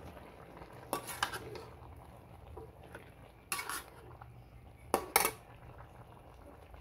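A cooking utensil stirring pork and opo in a pan, knocking and scraping against the pan: a couple of knocks about a second in, one around three and a half seconds, and two sharp ones close together near five seconds.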